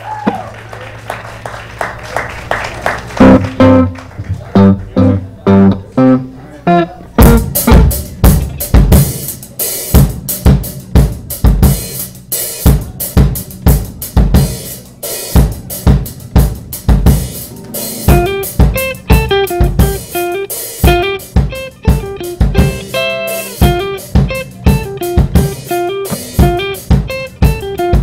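Live band music. Sustained electric guitar chords open quietly, then about seven seconds in a Tama drum kit comes in hard with regular snare and bass-drum hits and cymbal strikes, and an electric guitar plays a melodic line over it.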